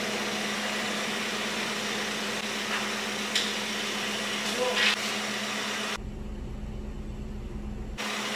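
Steady machine hum with a constant low tone and a few faint knocks and clinks. For about two seconds near the end, a deeper rumble takes its place.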